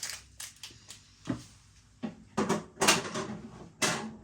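Kitchen handling noise: a string of short, light knocks and clatters, about eight of them, the loudest a little under three seconds in and again near the end.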